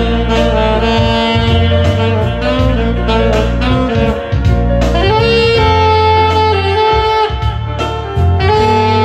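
Alto saxophone playing a melody of long held notes, stepping up to a higher note about halfway through, over a backing track with a bass line and a steady beat.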